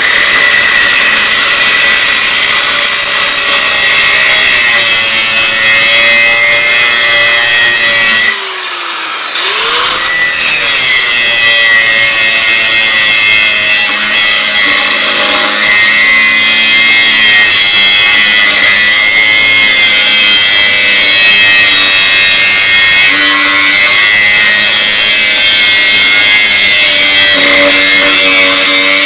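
Angle grinder with a thin cutting wheel, running loud and steady as it cuts into the edge of a weld on a steel tractor frame. About eight seconds in it briefly lets off, then spins back up to speed.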